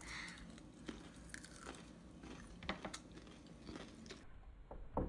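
Raw cucumber sticks being bitten and chewed, giving faint crisp crunches at irregular intervals.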